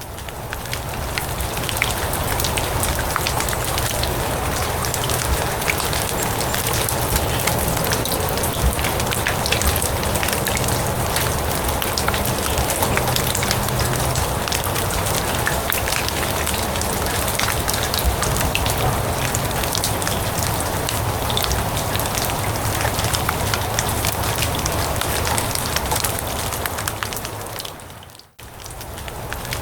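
Steady rain falling on grass and leaves: a dense hiss packed with small drop ticks, over a faint low rumble. Near the end it briefly fades out and comes back in.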